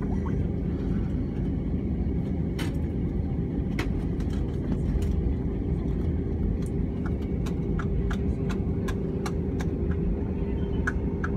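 Cabin noise of an Airbus A320 taxiing: a steady low rumble from the engines at taxi power and the rolling wheels, with a steady hum. Scattered light clicks and knocks come through, more often in the second half.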